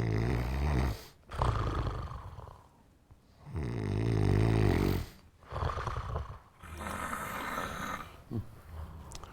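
A person snoring heavily: a run of long, low, buzzing snores one after another, the loudest a little over three seconds in.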